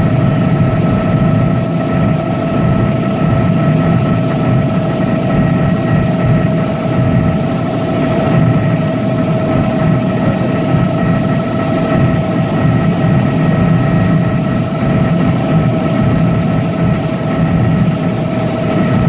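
Helicopter in flight heard from inside the cabin: a loud, steady drone of rotor and engine with several constant whining tones over it.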